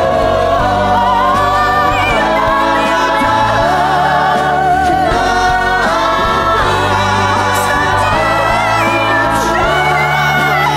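A stage-musical song sung by several voices together over backing music, with long held notes.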